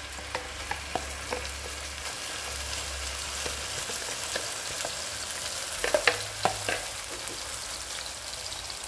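Ground chili paste sizzling in cooking oil in a non-stick pot, a steady frying hiss with scattered light clicks, and a few sharper clicks about six seconds in.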